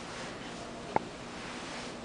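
A single sharp click about a second in, over a faint steady hiss, while a socked foot handles a leather boot in its shoebox.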